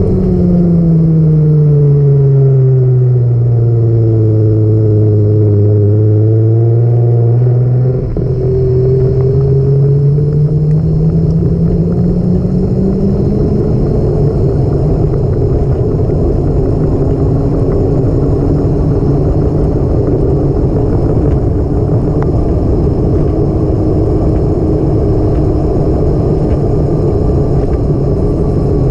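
A vehicle engine running under a steady rush of road or wind noise: its note falls over the first few seconds, holds low, then climbs again from about ten seconds in as it speeds up.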